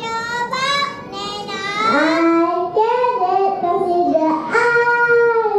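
Young children singing together, a melody of long held notes that gets louder from about two seconds in.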